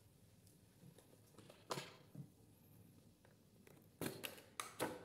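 Faint handling noises of an earbud box and its covered tray: a soft tap about a second and a half in, then a few quick knocks and rustles near the end as hands grip the tray.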